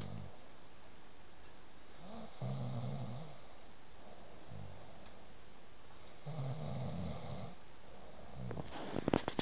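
A person snoring in their sleep: a long rattling snore about every four seconds, each lasting over a second, with softer breaths between. Near the end comes a quick run of sharp clicks.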